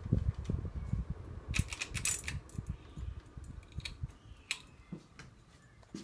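Encon Monarch four-blade ceiling fan running, with air from the blades buffeting the microphone at first and scattered clicks and light rattles in the middle. The sound grows quieter toward the end.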